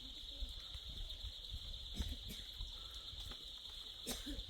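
A steady, high insect chorus, crickets or cicadas, drones without a break, over a low rumble and a few faint clicks.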